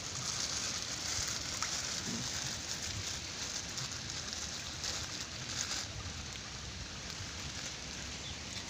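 Shallow stream water splashing and trickling around a wader's legs, a steady hiss that grows a little louder about a second in and again around five seconds.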